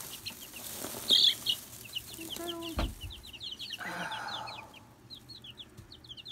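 A group of days-old chicks peeping, a rapid run of short, high cheeps several a second, with one louder cheep about a second in. A brief low thump and rustle come near the middle.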